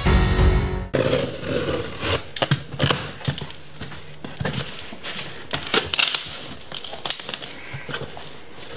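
Intro music that cuts off about a second in, followed by a stiff corrugated cardboard box being opened by hand: its flaps rustling and scraping, with scattered clicks and knocks.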